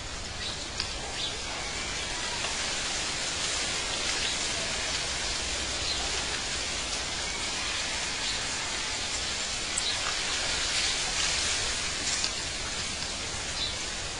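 Outdoor nature ambience: a steady rushing hiss with a few brief, high bird chirps scattered through it.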